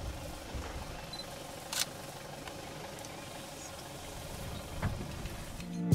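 Vehicle engine idling faintly with a steady hum, and a couple of brief soft clicks.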